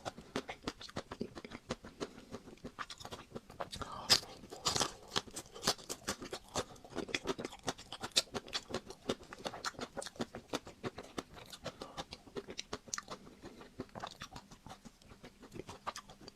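Close-miked biting and chewing of a Magnum ice cream bar, its chocolate coating crunching in quick irregular cracks, with louder bites about four and five seconds in.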